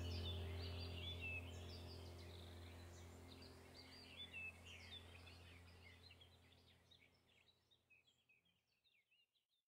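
Laid-on background track of birds chirping over a low steady drone, fading out evenly to silence near the end.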